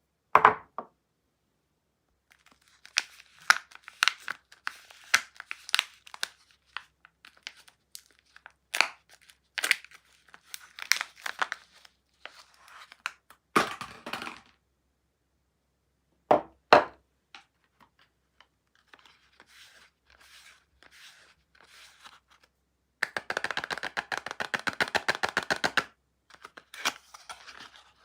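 Soap packaging being unwrapped: crinkling and tearing of wrappers, with a few sharp knocks. Near the end comes a fast run of ticks like a long tear.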